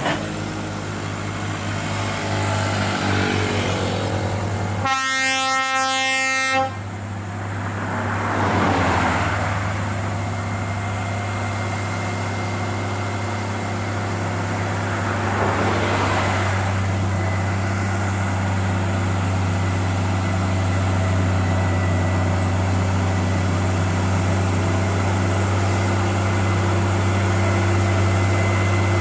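Heavy truck diesel engine running steadily under load, with one horn blast of nearly two seconds about five seconds in. Twice more, a rushing swell of passing traffic rises and fades.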